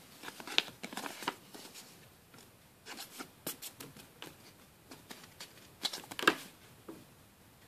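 A trading card being slid by hand into a card sleeve: scattered soft rustles and small clicks of card against sleeve, loudest about six seconds in.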